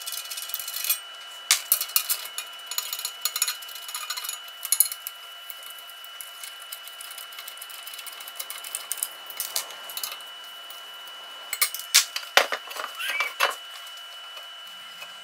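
Scattered metallic clicks, clinks and knocks from aluminium intercooler and radiator parts being handled and set down on a workbench, as the intercooler is taken off the radiator. The clatter is busiest in the first few seconds and again around twelve seconds in.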